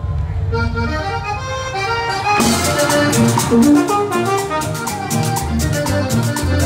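Live Colombian tropical band with brass, percussion and bass. A melody line opens the tune, and about two seconds in the full band comes in with a steady percussion beat.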